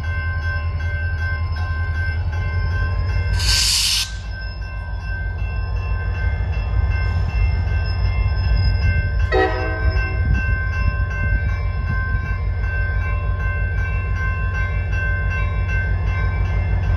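Diesel locomotive of a CSX welded rail train rumbling steadily as it crawls through a grade crossing, with the crossing's warning bell ringing as steady tones over it. A brief loud hiss comes about three and a half seconds in, and a short horn note sounds about nine seconds in.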